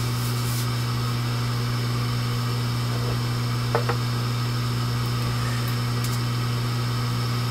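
Hot air rework station's blower running steadily with its heaters off, pushing air through the nozzle to cool the board and parts in the cool-down stage of the reflow profile. It sounds like a steady hum with an airy hiss.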